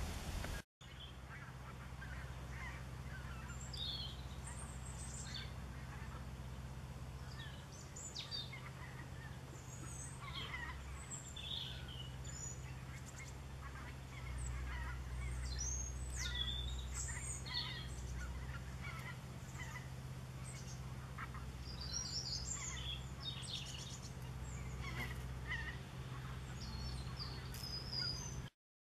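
Background birdsong: many short bird calls and chirps, some gliding in pitch, scattered throughout over a steady low hum. A brief dropout comes just under a second in, and the sound cuts off just before the end.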